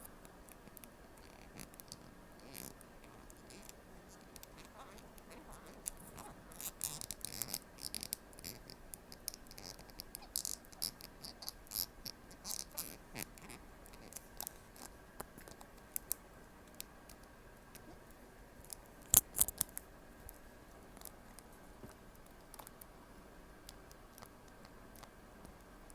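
Playmates Mechagodzilla plastic toy figure being handled, giving irregular soft clicks, taps and scrapes of plastic parts. The clicking is thickest in the middle, with a sharper pair of clicks about three-quarters of the way through.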